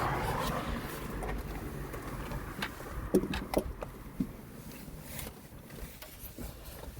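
A rushing noise that fades away over the first second, then a handful of light clicks and knocks, the sharpest about three seconds in, as wiring and plastic interior trim are handled.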